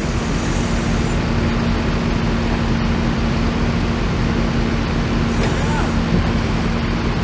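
A heavy vehicle engine idling steadily, a constant low drone with an even hum.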